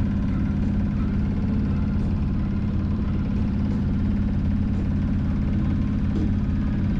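A Hurley 24/70 yacht's engine runs steadily while the boat motors under way, with a constant low drone and no change in speed.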